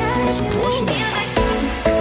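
Electronic pop music with held synth tones, gliding melodic lines and sharp beats.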